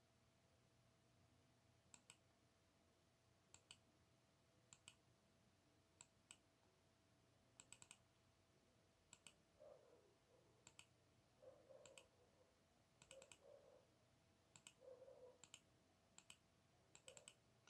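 Faint computer mouse clicks at irregular intervals, many in quick pairs, as the vertices of building polygons are placed one by one in a GIS editor.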